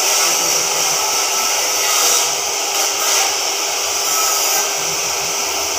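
Oxy-fuel cutting torch on a CNC gantry cutter burning through thick steel plate: a steady, even hiss of the cutting jet.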